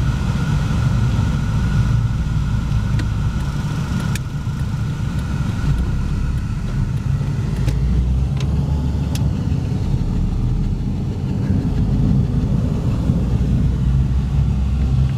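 Car driving in city traffic, heard from inside the cabin: a steady low engine and road rumble.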